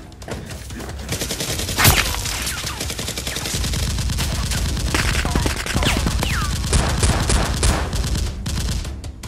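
Gunfire sound effects laid over a toy-blaster fight: rapid bursts of automatic fire with single loud shots, the loudest about two seconds in, and a few short falling whistles among the shots.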